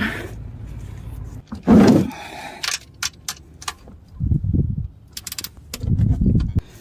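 Ratchet and 15 mm socket clicking and clinking on the oil drain plug of a 3.7 L V6 as it is worked loose. There are short runs of metallic clicks, with a few low rumbling swells in between.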